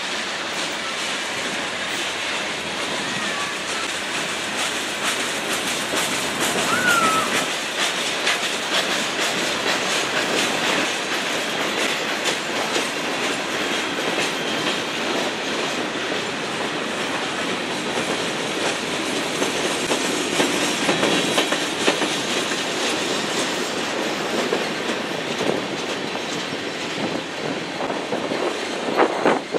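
Freight cars of a manifest train rolling past close by: steady rumble of steel wheels clicking over rail joints. There is a short squeal about seven seconds in and a few louder clanks near the end.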